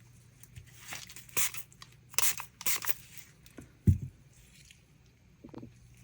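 Small plastic resin-crafting supplies being handled on a table: a few short scraping, rustling sounds, then a single knock about four seconds in.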